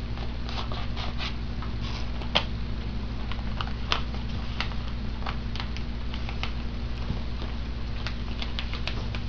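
Sheet of paper crinkling and crackling in short, irregular bursts as it is folded and pulled open by hand, over a steady low electrical hum.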